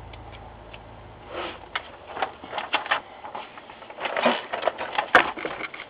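Small clicks, taps and scrapes of a precision screwdriver and plastic laptop parts as screws go back into the screen bezel, with one sharp click about five seconds in.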